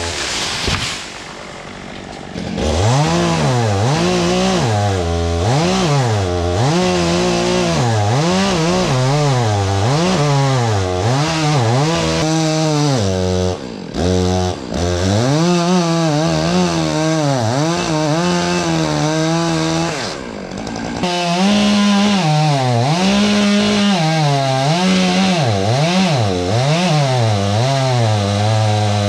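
Two-stroke chainsaw cutting wood, its engine pitch rising and falling every second or so as it revs and bogs under the cut. It is quieter for the first couple of seconds before picking up, and it eases off briefly twice.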